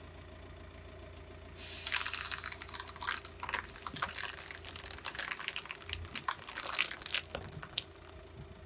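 Car tyre rolling slowly over blocks of floral foam stuck full of thin sticks, crushing them: an irregular run of crackles and snaps from about two seconds in as the sticks break and the foam gives way, over a faint low hum.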